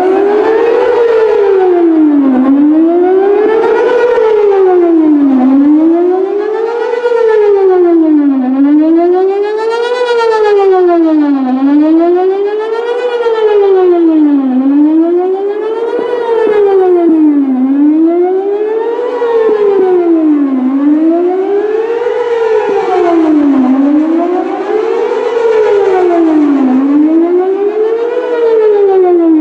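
Whelen WPS-4008 electronic outdoor warning siren sounding a loud wail during a siren test, its pitch rising and falling evenly about once every three seconds.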